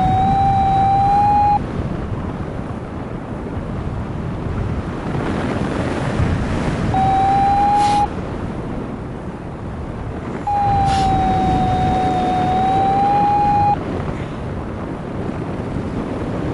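Wind rushing over the microphone in flight, overlaid three times by a steady electronic tone from a flight variometer, its pitch wavering slightly. The first tone sounds at the start, a short one comes about seven seconds in, and the longest, about three seconds, comes just past the middle.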